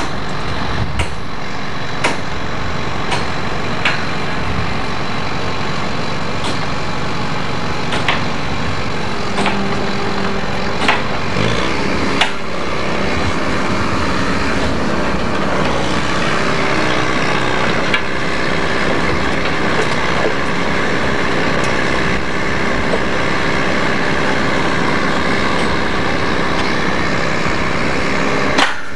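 Heavy construction machinery, such as an excavator working on track laying, running steadily, with sharp knocks every second or few seconds, most of them in the first half.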